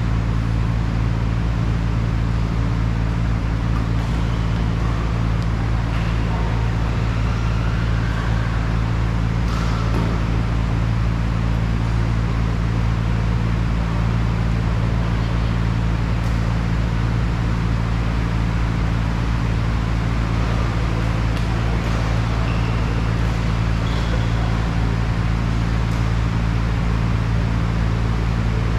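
Steady low mechanical hum with several fixed pitches, unchanging throughout, with a few faint sharp clicks now and then.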